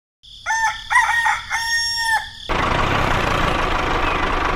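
A rooster crowing once, a drawn-out cock-a-doodle-doo that cuts off abruptly about halfway through. A steady hum and hiss then takes over.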